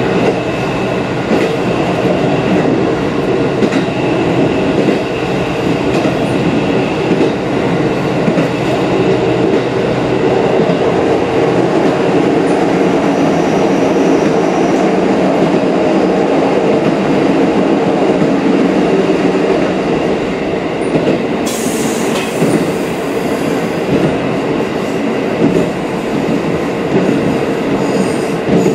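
KiHa 54 diesel railcar heard from inside its rear cab while running: a steady engine drone with the wheels rolling on the rails. About three-quarters of the way through, a sudden hiss lasts two or three seconds.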